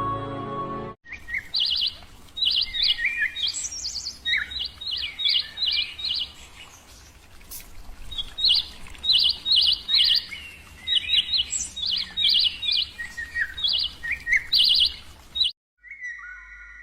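Bird song: short, high chirps repeated in quick runs, with some lower notes between them. It cuts in suddenly about a second in and stops abruptly near the end, with music on either side.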